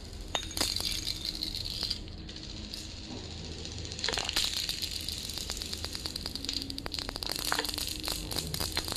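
Glass marbles rolling across a polished stone floor, a steady rolling hiss with many sharp clicks as they knock into one another. The clicks come thicker from about four seconds in.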